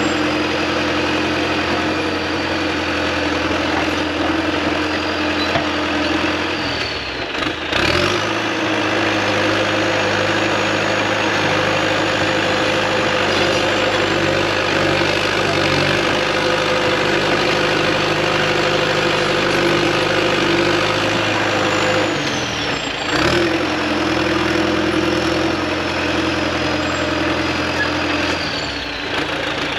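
Heavy diesel engine running steadily with a faint high whine. About eight seconds in, the engine note changes and the whine jumps higher in pitch. Around twenty-two seconds in, both drop back to the earlier note.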